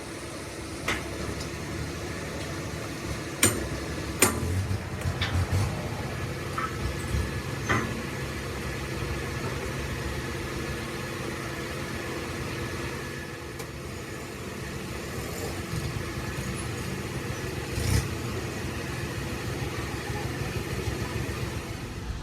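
An engine running steadily at idle, with a few sharp knocks or clicks, the strongest about three and a half and four seconds in and another near eighteen seconds.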